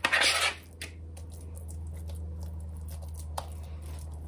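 A thick, moist stuffing mixture being scraped and spread over chicken in a crock pot: a loud scrape in the first half second, then a few soft clicks and squishes, over a steady low hum.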